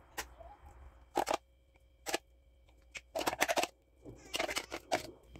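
Metal spoon scraping ginger-garlic paste out of a food processor bowl and knocking against the rim of a glass jar: irregular short clicks and scrapes, coming in denser runs in the second half.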